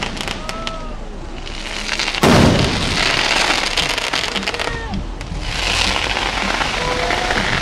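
Aerial firework shells bursting, with one loud boom about two seconds in, followed by a hissing crackle of burning stars and scattered sharp cracks.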